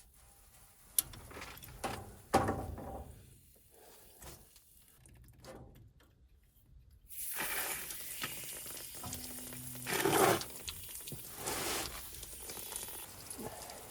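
Scattered knocks, scrapes and rustling from someone moving about and handling things in a cramped crawl space, with sharp clicks near the start and a louder scraping clatter about ten seconds in.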